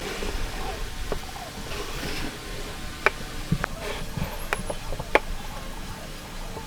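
Irregular sharp taps and clicks of hand tools working wood, about five of them spread over a few seconds, some with a short ring.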